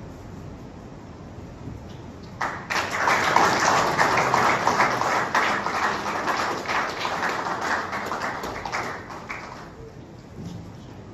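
Audience applauding: the clapping starts about two and a half seconds in, holds, then dies away shortly before the end.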